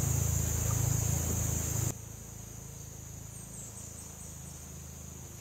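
Insects droning in a steady high pitch, with a low steady hum beneath. About two seconds in, both drop abruptly to a fainter level, and a few short high chirps follow.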